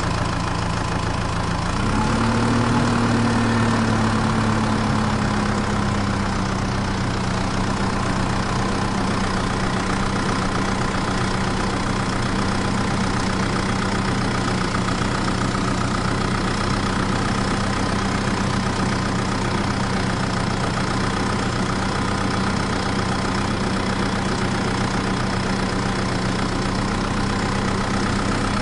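Mini tractor engine idling steadily. About two seconds in it revs up briefly, then eases back down to idle.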